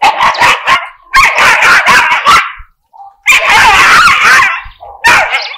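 Two dogs, one of them a Jack Russell terrier, barking in rapid high-pitched volleys. The barking comes in four bursts with short breaks between them.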